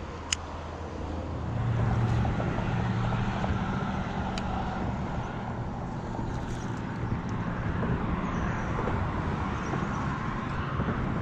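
Steady interstate highway traffic noise, with a low hum growing louder about a second and a half in. A sharp click comes near the start and another about four seconds in.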